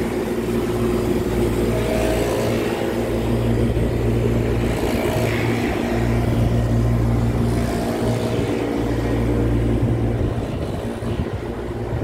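Air-cooled chiller running: its hermetic compressors and condenser fans make a steady mechanical hum over a strong low drone.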